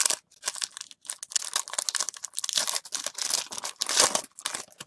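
Foil trading-card pack wrapper being torn open and crinkled: a run of dense, crackling rustles.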